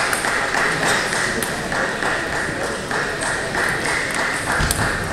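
Table tennis rally: the celluloid ball clicks sharply off paddles and the table, several times over a few seconds, over a steady background hiss in the hall.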